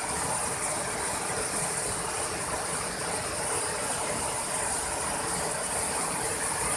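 Wide waterfall pouring over rock ledges into a pool: a steady, even rushing of falling water.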